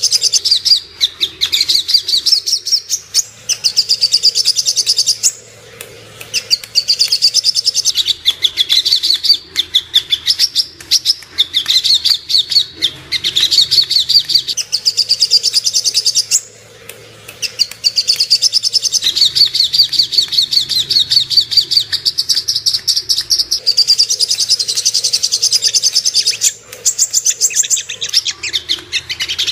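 Little spiderhunter (sogok ontong) singing: long runs of rapid, high, sharp notes repeated many times a second, broken by a few short pauses.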